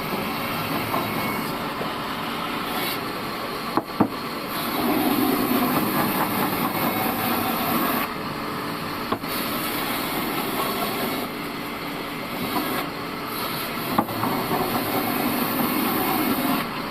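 Band sawmill running, its blade sawing through a log. A steady mechanical noise grows louder for a few seconds at a time, with a couple of sharp knocks.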